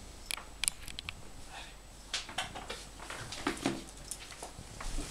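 Irregular clicks and taps of a small Yorkshire terrier's claws on a tiled floor as it scampers and turns quickly.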